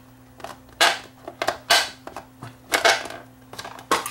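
A screwdriver prying apart the heated plastic shell of an 8-track tape cartridge: a run of sharp cracks, snaps and scrapes as the two halves of the shell come apart.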